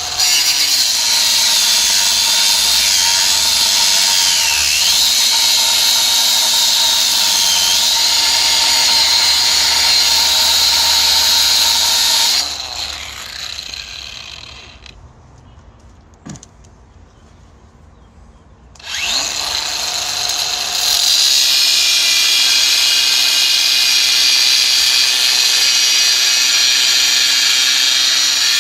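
Cordless angle grinder cutting a steel rail: the disc grinds steadily, the motor note dipping now and then under load. About twelve seconds in, the grinding stops and the sound winds down to a quiet spell; the grinder starts again at about nineteen seconds and cuts on.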